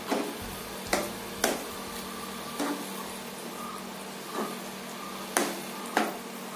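Steel ladle stirring thick rice porridge in a non-stick pan, knocking and scraping against the pan every second or so, over a steady low hum.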